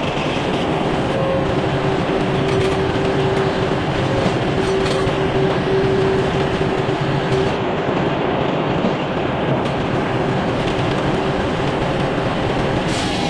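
Sawmill running while the blade cuts through a red oak log: a loud, steady mechanical noise with a faint hum that grows stronger in the first half.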